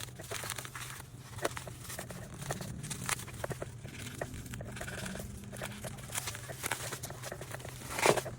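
Packaging being handled by hand: rustling, crinkling and many small clicks, with a louder knock about eight seconds in, over a steady low hum.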